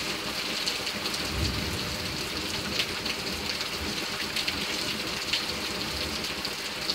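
Heavy rain falling steadily, with scattered drops tapping sharply close by. Low rumbles of thunder come in about a second in and again near the end.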